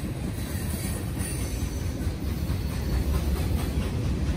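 Loaded freight cars of a CSX train rolling past: a steady rumble of wheels on rail with faint scattered knocks, growing slightly louder toward the end.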